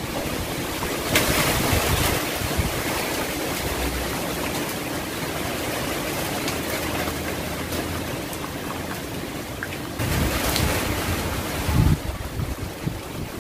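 Typhoon-force wind gusting through trees, leaves and branches thrashing, with the gusts buffeting the microphone. The wind swells about a second in and again, more strongly, about ten seconds in.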